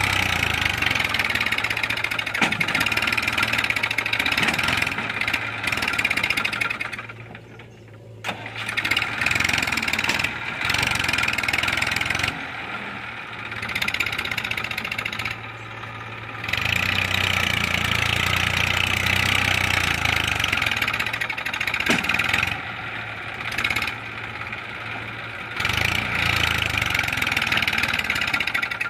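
Tractor diesel engine labouring as it pulls a trailer loaded with sand through soft ground, its loudness rising and falling with the throttle. It drops away several times, most clearly about seven to eight seconds in.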